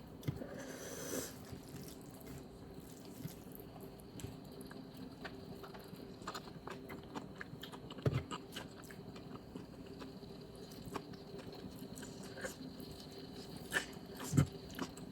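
A person quietly chewing and eating food, with many small mouth clicks and two brief louder knocks, one about halfway through and one near the end.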